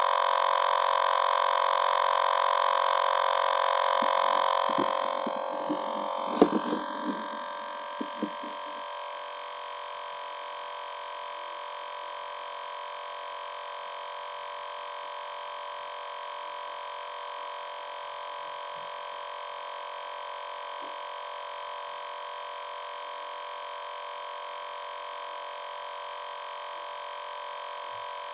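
A steady electronic hum with many overtones. It drops to a lower level about four and a half seconds in, with a handful of knocks around that change.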